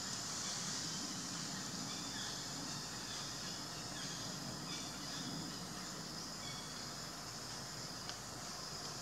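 Steady high-pitched drone of insects in the trees, with a low rumble underneath.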